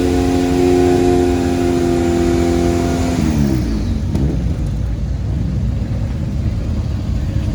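Competition car's engine held at high revs, then its pitch falls away about three seconds in, leaving a low engine rumble.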